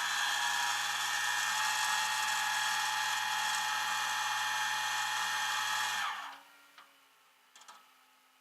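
A small electric motor spinning up to a steady high whine, running for about six seconds and then cutting off, followed by a couple of faint clicks.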